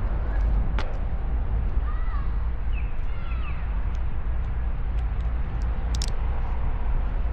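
Outdoor ambience: a steady low rumble with a few short bird chirps about two to three and a half seconds in, and scattered light clicks.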